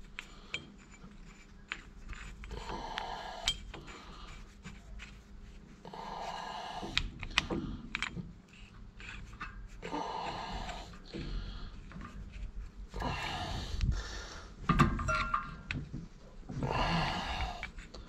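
A person's breathing: a loud breath every three to four seconds, with light clicks and clinks of metal tools in between.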